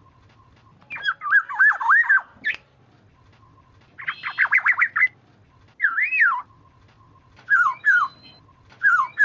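Oriole (kepudang) lure recording: fluty, gliding whistled phrases in short bouts with pauses between them, including a quick run of notes about four seconds in.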